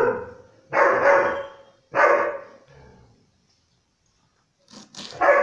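German Shepherd dog barking: loud barks about a second apart, a pause, then another bark starting near the end.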